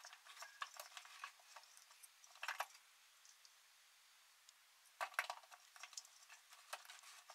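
Faint clicks and knocks of a plastic spool of flux-cored welding wire being handled, slid off and back onto the welder's reel spindle, with louder clusters of knocks about two and a half seconds in and again about five seconds in.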